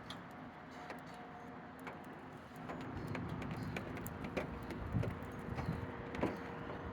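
Outdoor street ambience: a steady wash of traffic noise with scattered small clicks and knocks.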